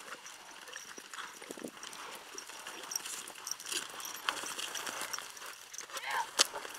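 Hoofbeats of loping horses and a running steer on arena dirt, irregular thuds, with one sharp click near the end.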